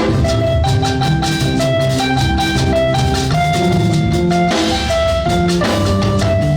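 Instrumental music: a drum-kit beat under a melody of short held notes moving step by step.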